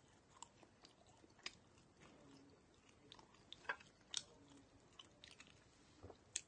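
Faint chewing of a soft bread bun topped with spicy pork floss: wet mouth clicks and smacks at irregular intervals, the sharpest about halfway through and just before the end.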